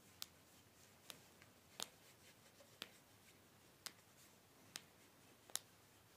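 Faint, sharp clicks and taps, seven of them about a second apart at an uneven pace, from the parts of a Kral A12 shotgun being handled during cleaning.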